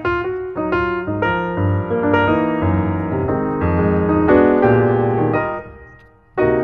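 Background piano music: a flowing phrase of notes that fades away about five and a half seconds in, then a new phrase starts just before the end.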